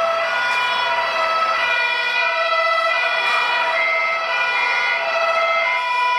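Two-tone fire-engine siren of a model fire truck, switching back and forth between two pitches.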